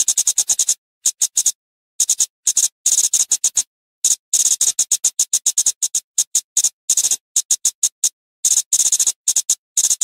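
Flowerpecker giving rapid runs of sharp, high ticking calls, run after run with brief pauses between.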